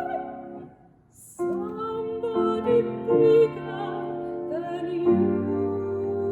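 A sung note with vibrato fades away. After a short gap about a second in, music with held chords and a singing voice begins.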